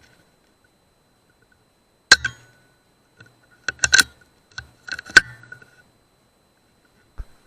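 A PCP air rifle, a custom .177 Air Arms S200, fires once with a sharp crack about two seconds in, followed by several sharp metallic clicks and clinks with brief ringing.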